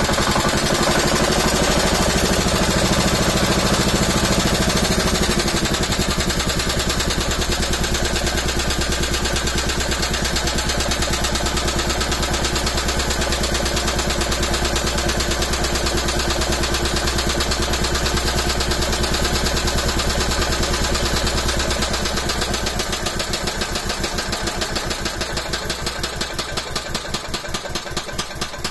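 Honda single-cylinder petrol engine running on HHO gas, with a steady firing beat and a drop in speed about five seconds in. Near the end it slows to separate, spaced firing beats and winds down as its gas supply from the balloon runs out.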